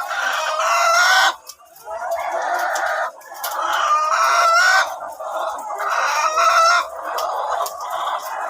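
A flock of chickens clucking and calling loudly, with four long crowing calls in a row, each rising slightly in pitch and lasting about a second.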